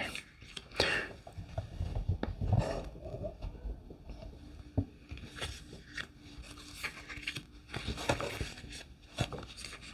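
Tarot cards being slid and laid out on a table: light scraping and handling with a few soft taps.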